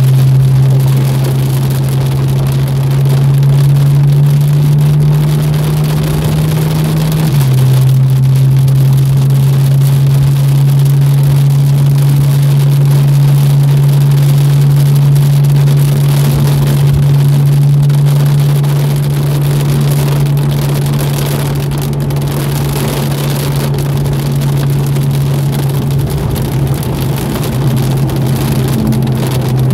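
Porsche 991.1 Carrera's flat-six engine running at a steady cruise, heard inside the cabin. Its drone drops slightly in pitch about seven seconds in, over a constant hiss of heavy rain and tyre spray on a wet track.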